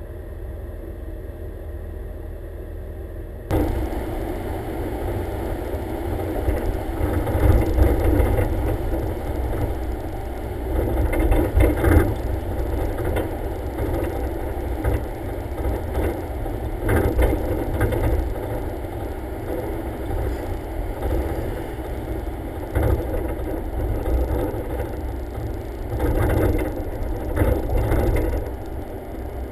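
Car driving on city streets, heard from outside on the hood: engine, road rumble and wind on the microphone, with irregular surges and rattles. A few seconds in it changes abruptly to a louder, busier stretch.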